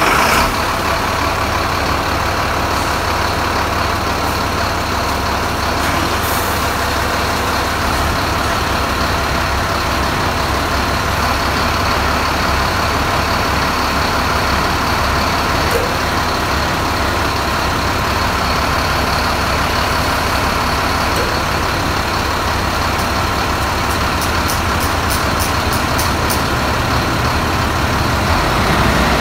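Crane truck's diesel engine running steadily, just started, powering the truck-mounted hydraulic knuckle-boom crane as it is worked by radio remote. A quick run of light clicks comes near the end.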